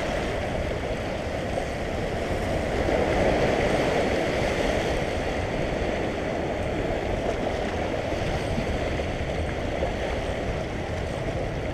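Sea water washing over shoreline rocks: a steady rushing noise that swells slightly a few seconds in.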